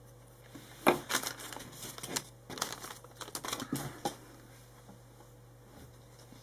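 Crinkly toy blind-bag packaging being handled, rustling in irregular bursts for about three seconds, with a sharp click about a second in.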